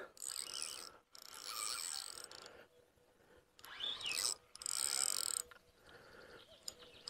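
Fishing reel ratcheting in about four short bursts while a hooked fish is being fought on the line.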